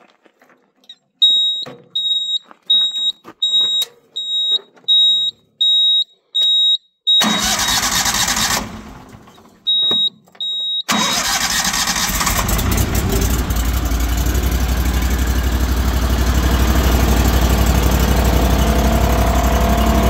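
A control-panel warning beeper on a towable woodchipper sounds in a string of short high beeps, about two a second. Then the chipper's 35 hp Briggs & Stratton Vanguard V-twin petrol engine is started. It first catches about seven seconds in and dies away after a second or so. After two more beeps it starts again about eleven seconds in and keeps running, slowly growing louder.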